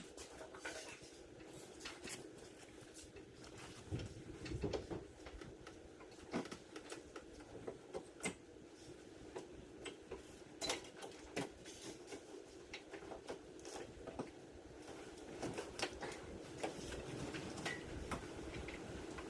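Scattered light clicks and knocks of hand tools and parts being handled during truck reassembly, over a faint steady hum.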